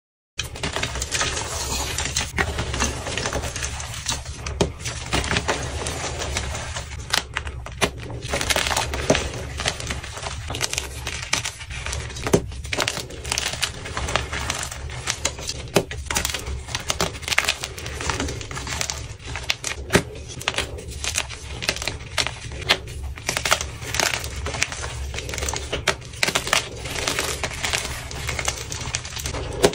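Blocks of gym chalk being crushed and crumbled by hand: a continuous dense crunching, thick with sharp cracks and snaps as the blocks break apart into chunks and powder.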